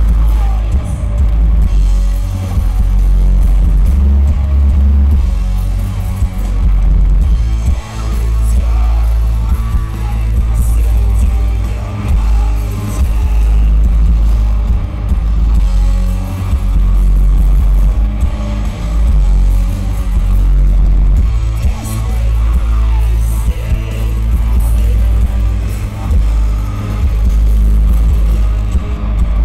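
Heavy post-metal band playing live through a large PA: distorted electric guitars, bass guitar and drums, dominated by a heavy low end. The loudness swells and dips about every two seconds with a slow, pounding riff.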